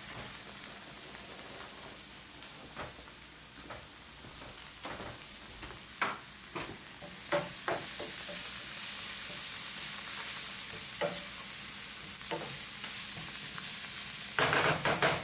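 A sofrito of chopped onion and scallion sizzling in oil in a frying pan with a steady hiss, while a wooden spoon stirs it, scraping and knocking against the pan now and then, with a quick flurry of scrapes near the end.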